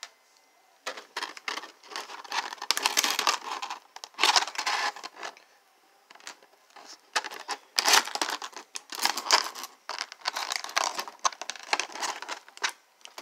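Clear plastic packaging and a thin plastic bag being handled and crinkled in irregular bursts. It starts about a second in, with a short lull in the middle.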